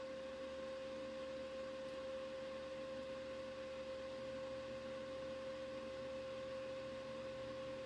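A steady electronic tone at a single pitch, held without any change over faint background hiss.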